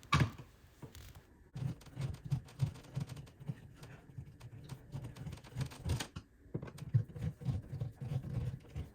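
Hands working small hardware: a run of irregular light clicks and soft knocks, picking up about a second and a half in.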